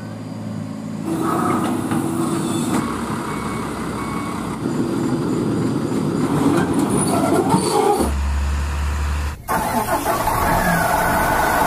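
Truck engine and road noise in a series of short segments, each ending in an abrupt cut.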